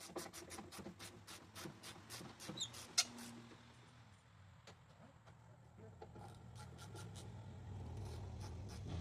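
Irregular clicks and a few short squeaks of hand work on metal tailgate hardware, with one sharper click about three seconds in. A low hum rises slowly through the second half.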